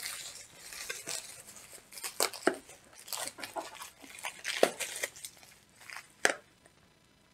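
Rustling and scattered taps and clicks of a cardboard parts box and its packaging being handled and pulled at by hand, going almost quiet near the end.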